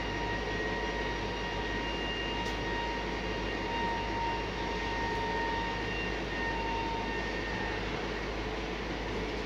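Self-loading platform truck's machinery running steadily, a constant low hum with a high whine over it that fades out near the end.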